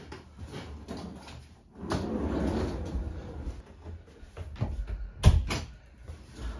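Suitcases being handled and rolled across the floor, then a room door shut with a loud thump about five seconds in.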